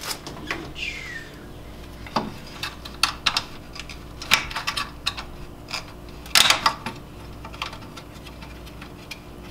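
Irregular light clicks and knocks of gloved hands handling plastic and metal parts in a car's engine bay, with a short cluster of rattling clicks about six and a half seconds in. A brief falling squeak about a second in.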